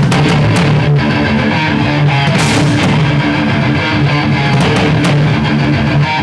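Rock band playing loudly together: electric guitar, bass guitar and drum kit, with cymbal hits cutting through.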